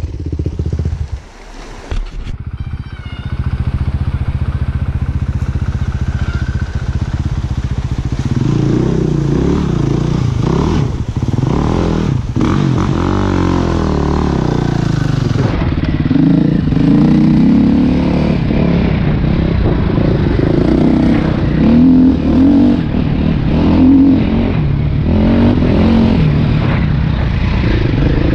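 Dirt bike engine running on a trail ride, its pitch rising and falling with the throttle, and a few sharp knocks from the bike over rough ground. It drops off briefly about a second in, then picks up and runs harder from about eight seconds on.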